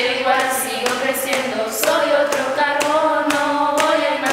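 Music with a singing voice holding long, gliding notes over a steady beat of about two clicks a second.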